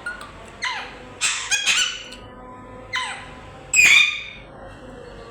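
Pet parrot squawking: a handful of harsh calls, two of them falling sharply in pitch, with a quick cluster in the middle and the loudest call near the end.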